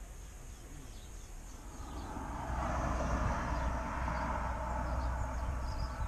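Quiet outdoor ambience with a few faint bird chirps. About two seconds in, a distant engine rumble swells up and then holds steady.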